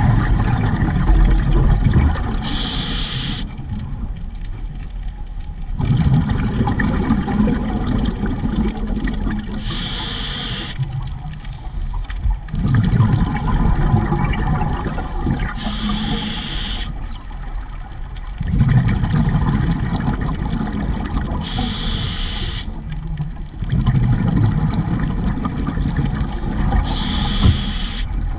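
Scuba diver breathing through a regulator underwater: five short hissing inhalations about six seconds apart, each followed by several seconds of rumbling, gurgling exhaust bubbles.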